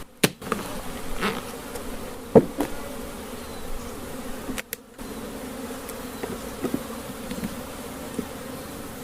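Honeybees buzzing steadily around an opened hive, with a sharp knock about two and a half seconds in. The sound drops out briefly twice, near the start and about five seconds in.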